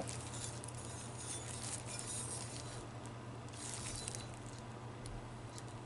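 Faint crinkling and rustling of plastic bubble wrap being handled, a little louder about two seconds in and again near four seconds, over a steady low hum.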